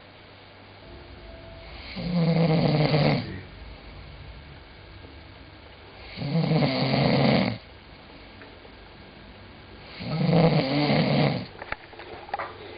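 A sleeping person snoring: three long, loud snores, each just over a second, coming about every four seconds. A few short clicks near the end.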